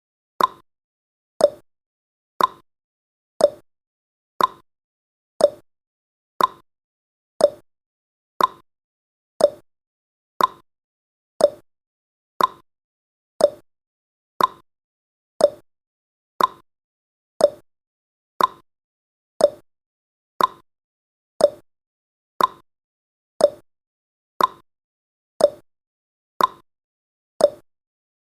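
Countdown timer's ticking sound effect: a short click every second, alternating between a higher and a lower tick, like a clock's tick-tock.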